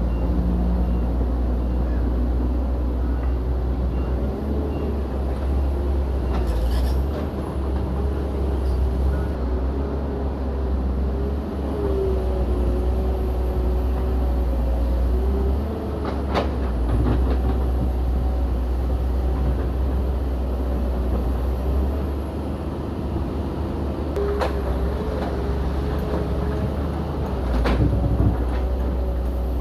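Heavy diesel earthmoving machinery, a bulldozer and an excavator, running steadily under load with a deep rumble and a wavering whine. A few sharp knocks cut through it.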